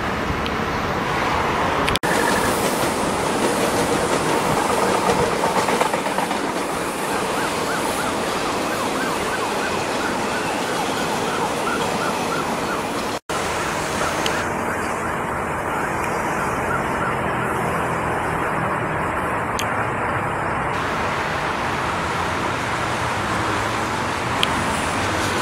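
Steady city traffic and rail noise from metro trains running on open track, with an emergency siren wailing in the mix.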